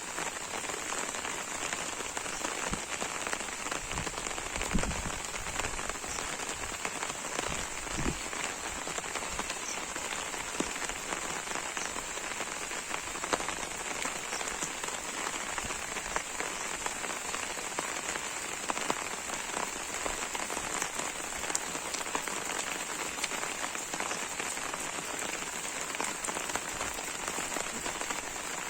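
Steady rain falling, a dense patter of individual drops over an even hiss, with a couple of short dull low thumps about five and eight seconds in.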